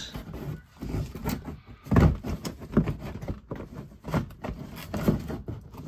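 Irregular knocks and scraping of a plastic inner fender liner being handled and worked loose in the wheel well, the loudest knock about two seconds in.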